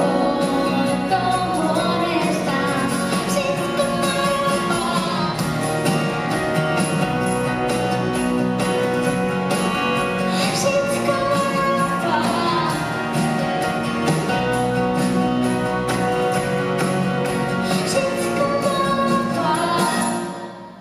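Live acoustic performance: a woman singing a melody with acoustic guitar and electric guitar accompaniment. The music fades out near the end.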